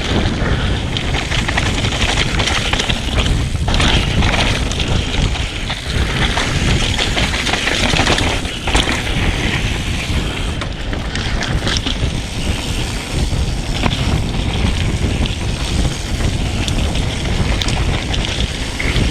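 Mountain bike riding fast down a dirt trail: wind buffeting the microphone, tyres rolling over dirt and rock, and the bike rattling and knocking over bumps.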